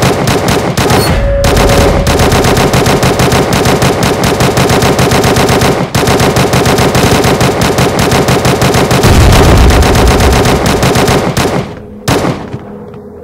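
Sustained automatic gunfire: rapid bursts from several automatic weapons, with short breaks about a second in and about six seconds in, dying away about a second before the end.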